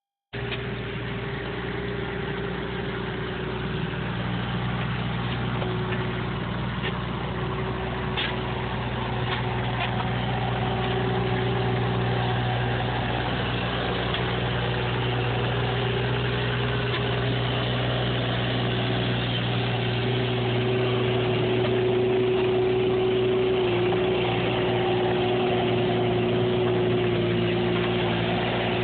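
Bobcat 325 mini excavator's diesel engine running steadily as the machine works, a low hum with a steady whine above it. A few light clanks come about eight seconds in, and the sound grows a little louder over the second half.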